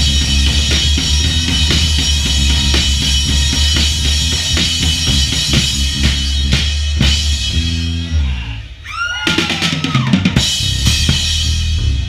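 Live drum kit solo: fast kick, snare and tom hits under a constant cymbal wash over a steady low hum, breaking about eight seconds in into a tom run and a last flurry of crashes, with tones gliding up and down near the end.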